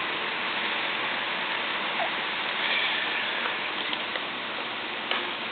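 Steady hiss with no clear pitch, with a faint click about two seconds in and another near the end.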